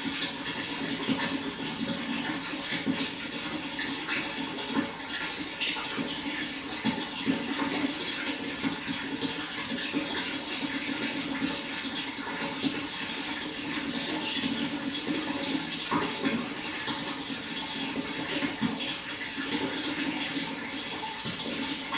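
Water flowing steadily, with many small splashes and gurgles throughout.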